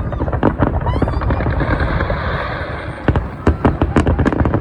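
Fireworks display: a rapid series of shell bursts with a dense crackling spell in the middle and a brief rising whistle about a second in.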